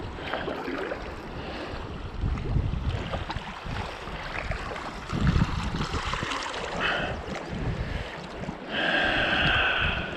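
A touring kayak paddle dipping and splashing in river water with each stroke, with wind buffeting the microphone. Near the end a steady high-pitched tone sounds for about a second.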